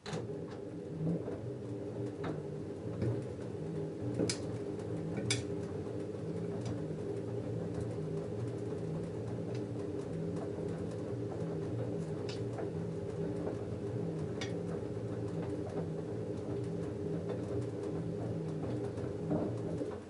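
LG F10A8HDS5 direct-drive front-loading washing machine turning its drum in a wash tumble, a load of denim rolling through the water. The motor runs with a steady hum and there are a few sharp clicks. The tumble starts suddenly and stops near the end.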